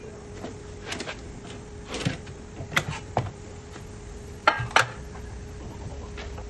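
A handful of light metallic clinks and knocks, some in quick pairs, over a faint steady hum; no drill is running.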